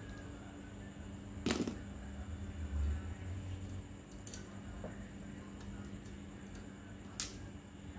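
Sharp clicks of pliers working a bicycle's rear derailleur shift cable, three louder ones about three seconds apart with a few lighter ticks between, over a steady background hum.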